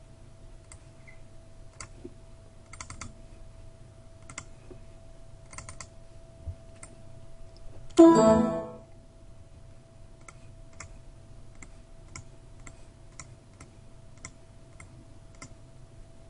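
Computer mouse clicking irregularly, often in quick double clicks, over a faint steady hum. About halfway through, a short ringing pitched tone sounds once, louder than anything else, and fades within a second.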